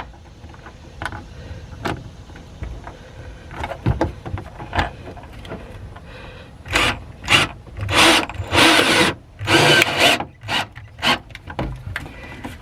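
A few light handling clicks, then a cordless drill driving a screw and fender washer into the plastic cargo box in several short bursts in the second half.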